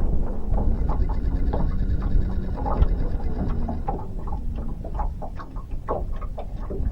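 Fishing reel being cranked to bring in a small fish, a run of irregular light clicks over a steady low rumble of wind and moving water.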